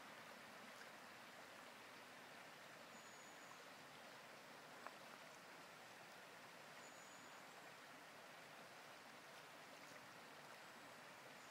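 Faint, steady rush of a shallow river running over stones, with a single faint click about halfway through.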